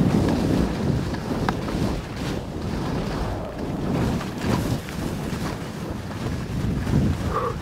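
Wind buffeting the microphone of a camera worn while skiing fast downhill, with the skis hissing over the snow; the rush swells and drops.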